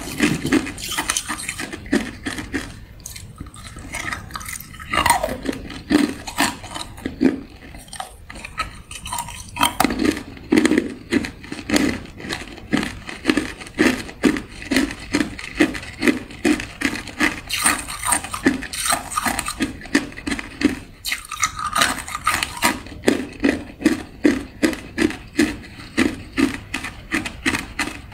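Hard clear ice being crunched and chewed in the mouth: a steady run of sharp, regular crunches with a few short pauses.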